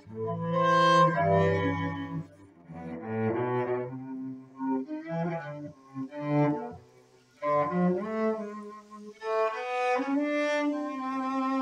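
Bowed-string music, cello-like and violin-like, playing a melodic line in short phrases with brief dips between them.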